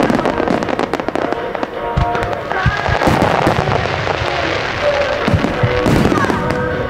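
Fireworks display: dense crackling and popping from many shells and fountains, with sharp bangs scattered through, over music with held tones.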